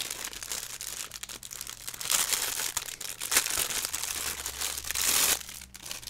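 Clear plastic packaging bag crinkling and rustling in uneven bursts as the airbrush compressor's air hose is unwrapped from it by hand, dying away near the end.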